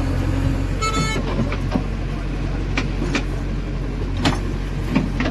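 JCB 3DX backhoe loader's diesel engine running steadily under load while the backhoe bucket digs soil and stones from a trench. Sharp knocks and clacks of the bucket and rock come several times, and there is a brief high-pitched squeal about a second in.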